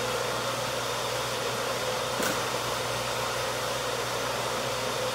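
Steady whooshing background noise with a low hum, like a running fan, and one faint click a little after two seconds in.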